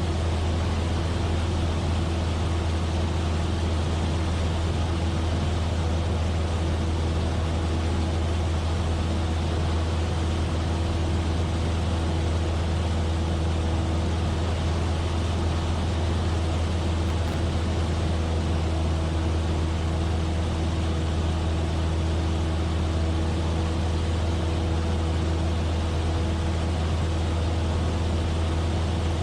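Cessna 172F's Continental O-300 six-cylinder engine and propeller droning steadily in flight: a deep, even hum with a few faint steady higher tones and no change in pitch.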